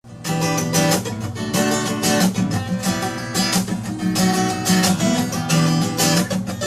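Acoustic guitar being strummed: chords struck every half second to second and left ringing between strokes.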